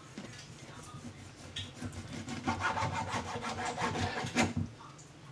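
A knife sawing back and forth through a raw chicken breast and scraping on a plastic cutting board in quick repeated strokes. The strokes grow louder about a second and a half in and stop shortly before the end.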